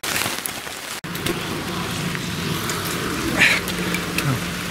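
Heavy rain falling steadily. About a second in, a low steady hum joins underneath.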